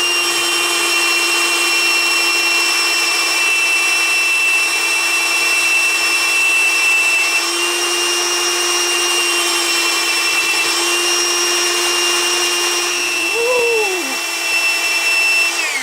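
Electric grinder running with a steady high whine as the bottom of a plastic guitar saddle is held against it, melting the plastic away rather than grinding it. The motor winds down at the very end.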